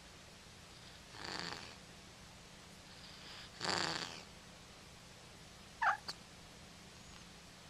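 Domestic cat snoring in its sleep: two noisy breaths about two and a half seconds apart, the second louder, with a soft breath between them. About six seconds in comes a short, sharp squeak and a click.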